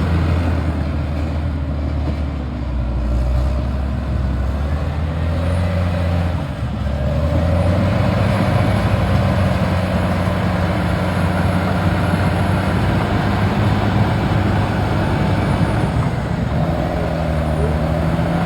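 A vehicle engine running steadily with a low hum. Its pitch and level shift briefly about six to seven seconds in, then settle again.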